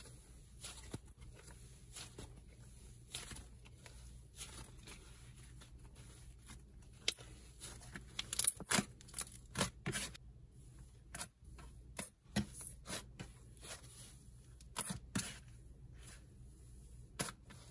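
Hands squeezing, kneading and stretching a cloud dough slime, giving irregular soft crackles and tearing sounds. They come thickest a little past the middle.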